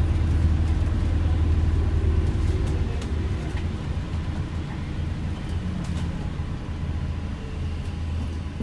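Low steady drone inside an ADL Enviro 400H MMC hybrid double-decker bus on the move, easing off about three seconds in and building again near the end.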